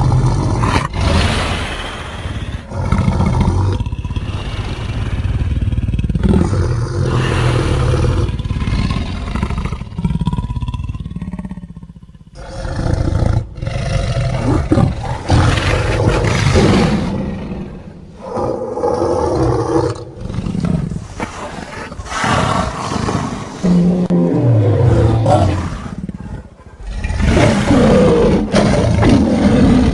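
A run of loud creature roars and growls, sound effects made for a giant piranha monster. The roars last several seconds each, with short breaks, the clearest about twelve seconds in and again near the end, and some low growls slide up and down in pitch.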